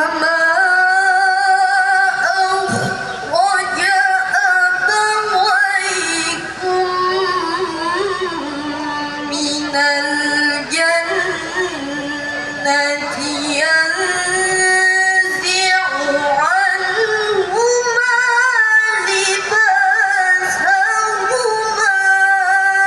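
A woman reciting the Quran in the melodic tilawah style, in a high voice. She holds long notes with wavering melismatic ornaments, with short breaks for breath between phrases.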